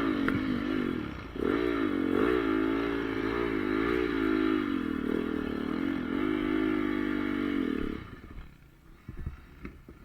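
Single-cylinder four-stroke engine of a Honda CRF450R motocross bike running under throttle, its pitch wavering up and down, with a brief dip a little over a second in. About eight seconds in the engine sound falls away abruptly.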